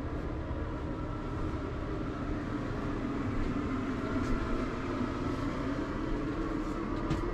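Steady, even mechanical hum of a fan or blower motor running, with a few faint clicks.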